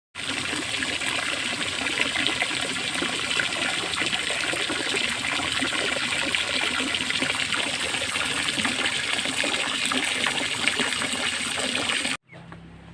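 Steady rush of running, splashing water with small crackles throughout; it cuts off suddenly near the end.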